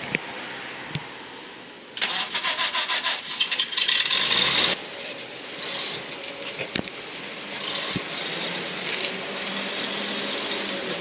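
A WWII-era armoured car's engine is cranked by its starter for about three seconds, in rapid even pulses, about two seconds in. It then catches and runs at a steady idle.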